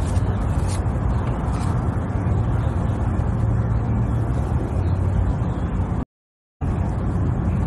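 A steady low rumble with no rhythm, broken by about half a second of total silence about six seconds in.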